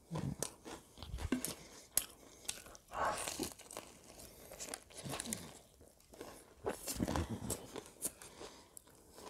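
Close-miked eating of a KFC fried chicken burger: biting and chewing, with irregular crunches from the crispy coating and wet mouth clicks. The loudest crunches come about three seconds in and again around seven seconds.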